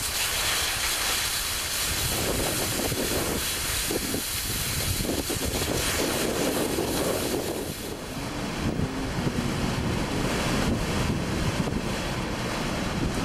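Strong wind blowing across the microphone, a steady rushing roar. From about eight seconds in, a faint wavering whine rides over it.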